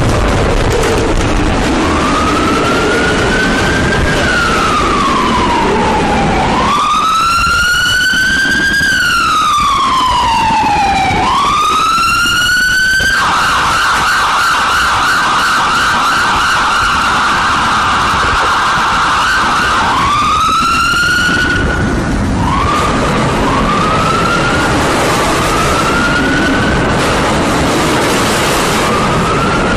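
Emergency vehicle siren sounding loud and close, running slow rising-and-falling wails, then a fast warbling yelp for several seconds, then short rising whoops near the end, over steady street noise.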